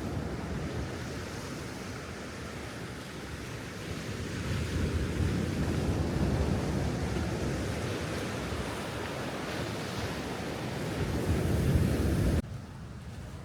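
Sea waves washing ashore, with wind noise on the microphone. The surf swells twice, then cuts off abruptly near the end to a quieter background.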